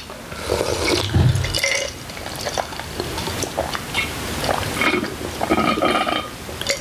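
Wet eating sounds from a bowl of bulgogi hotpot: broth being sipped and slurped in short irregular bursts, with a few small clicks.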